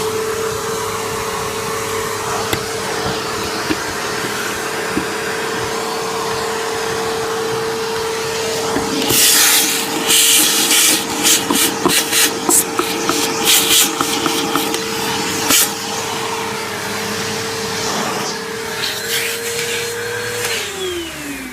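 Hoover vacuum cleaner running with a steady motor whine. From about nine to sixteen seconds in there is loud crackling and rattling over it. It is switched off near the end and winds down.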